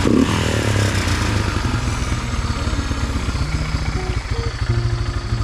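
Honda Fortrax 300 ATV's single-cylinder four-stroke engine idling steadily with a fast, even thumping pulse through its new aftermarket exhaust.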